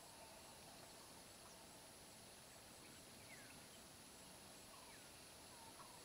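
Faint outdoor ambience of insects and birds: a steady high insect drone with a rapid regular pulsing chirp, and a few short falling bird chirps.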